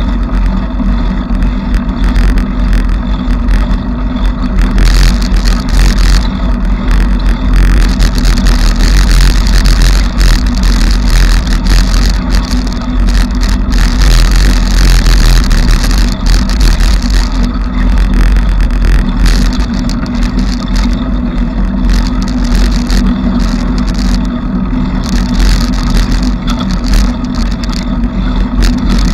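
Bicycle riding noise: a loud, steady low rumble with constant rattling and clatter from the moving bike.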